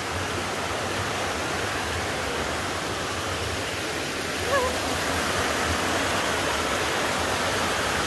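Shallow rocky forest stream rushing over mossy boulders and small cascades: a steady, even rush of water.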